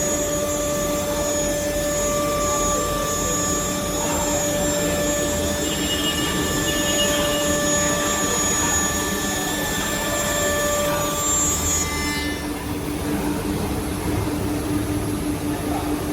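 CNC nesting router with its spindle and dust extraction running: a steady machine whine with several held tones over a hissing rush. About twelve seconds in the high hiss drops away while the whine carries on.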